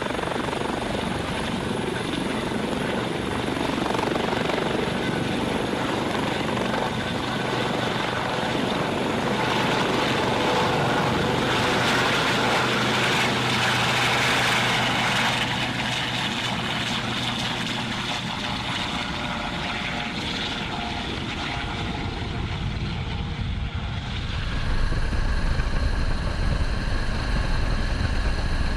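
US Coast Guard MH-65 Dolphin helicopter running, its rotor and twin turboshaft engines giving a steady drone as it hovers and lifts off. About 25 seconds in the sound steps up to a louder, deeper drone as heard from inside the cabin in flight.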